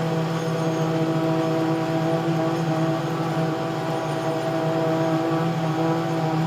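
An engine running steadily at one pitch, a constant drone.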